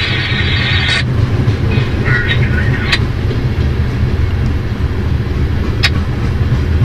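Freight train of covered hopper cars rolling past: a steady low rumble of steel wheels on rail. Short bursts of higher-pitched noise come in the first second and again around two to three seconds in, and there is a single sharp click near the end.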